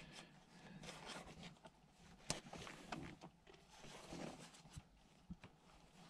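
Faint scraping and small clicks of a flat-head screwdriver prising staples out of a gear gaiter, with one sharper click a little over two seconds in.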